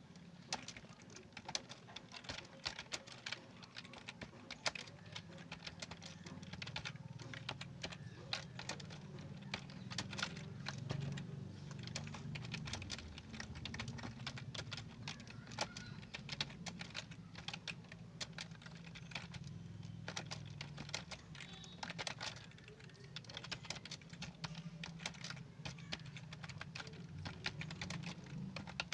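Fast, continuous typing on a computer keyboard: a dense, irregular run of key clicks over a low steady hum.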